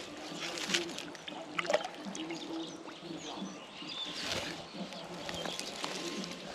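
Outdoor ambience with small birds chirping now and then, and a few brief splashes of water.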